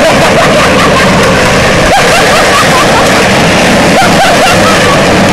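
Loud, steady rush of a moving vehicle and wind noise on the microphone as the truck tows the toy car through snow, with faint shouting voices and a sharp knock about two seconds in and another about four seconds in.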